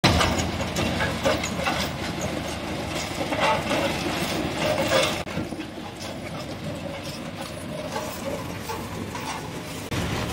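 Tractor running while its rear-mounted ripper tine tears up old asphalt, with crunching and clattering of breaking chunks. About five seconds in the sound drops suddenly to a quieter, steadier rumble.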